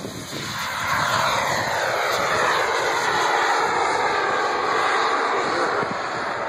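Radio-controlled model jet taking off and climbing away, its engine's rushing whine growing loud about a second in and then holding steady.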